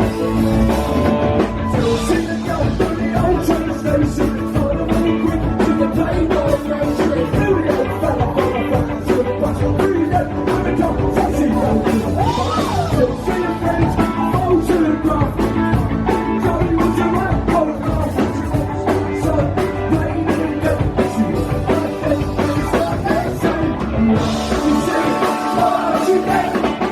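Live rock band playing a song: drums, bass, guitars and keys, loud and continuous, with a singer's voice coming in at times.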